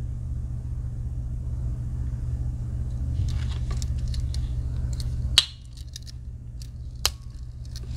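Victorinox Huntsman Swiss Army knife being handled, light ticking of its tools, then a sharp snap about five seconds in as a tool springs shut on its backspring, and another click a second and a half later. A steady low hum lies underneath.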